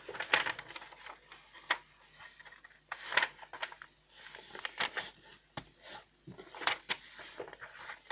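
A sheet of A4 printer paper being folded in half and creased flat: irregular crisp rustles and sharp paper clicks as it is handled and pressed down.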